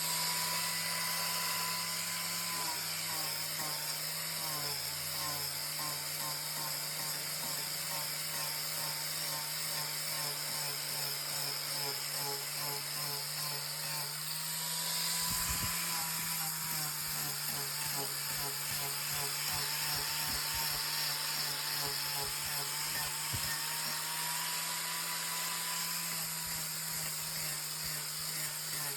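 Angle grinder fitted with a wood-shaping bit running steadily while cutting down the end of a wooden railing runner, with a few low knocks around the middle.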